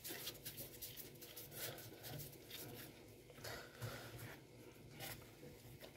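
Faint, irregular rustling and rubbing of hands in plastic gloves rolling soft dough into balls.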